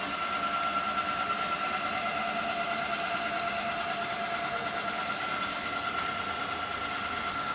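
A running DTF printer's steady machine hum, with a steady high whine over a noisy hiss.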